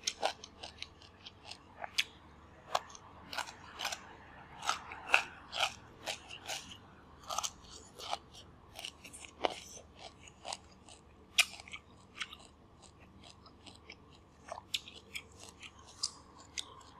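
Close-up mouth sounds of chewing crisp broiled bok choy: an irregular run of sharp, wet crunches several times a second, thinning out for a while before picking up again near the end.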